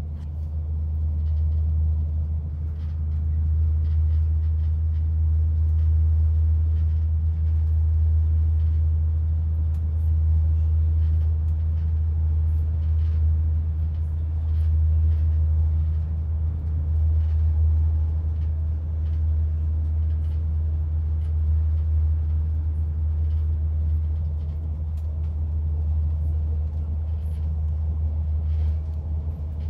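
Steady low rumble of a moving train, heard from inside the carriage, with faint light ticks now and then.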